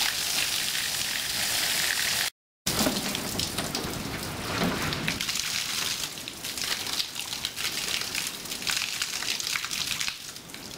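Steady hiss of rushing water, broken by a short total cut-out about two seconds in, with scattered crackling after it.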